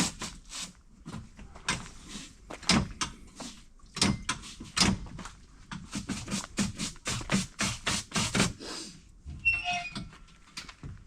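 Brisk footsteps on a bush walking track, a few steps each second. They stop about nine seconds in, and a few short high tones follow.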